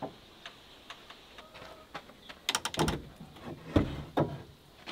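Handling knocks and clicks at a wooden smokehouse: a quick run of sharp clicks about halfway through, then two heavier knocks.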